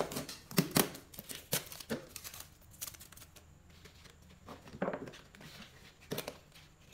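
Clear plastic dome lid on a paper bowl crackling and clicking as hands work it off. A quick run of sharp clicks over the first two seconds or so, then a few more later.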